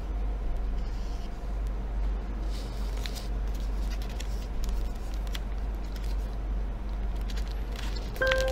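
Sheet of origami paper rustling and crinkling softly as it is creased by hand, over a steady low hum. Mallet-instrument music with bell-like notes starts near the end.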